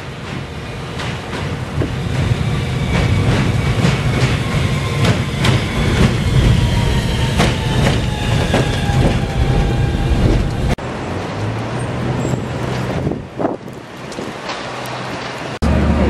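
A New York City Subway Q train pulling into the station, its wheels clacking over the rail joints while a whine from the train slides down in pitch as it slows. About eleven seconds in, the sound cuts abruptly to a steadier, quieter low hum, and just before the end it cuts again.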